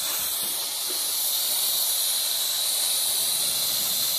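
A steady hiss, even and unbroken, with no separate knocks or tool sounds.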